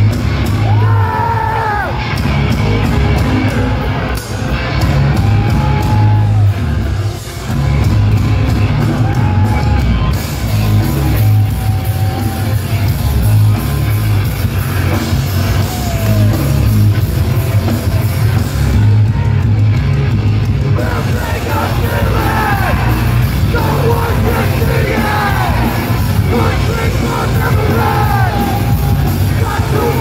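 Hardcore punk band playing loud live through a venue PA: pounding drums, distorted guitars and bass under a shouted and sung lead vocal.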